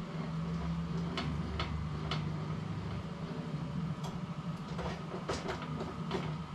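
Workbench caster wheel being handled, its swivel-and-wheel lock clicking: about eight sharp clicks, irregularly spaced, over a steady low hum.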